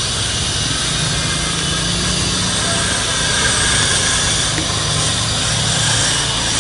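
A steady low engine hum over a continuous rushing noise from the fast-flowing river, both unbroken throughout.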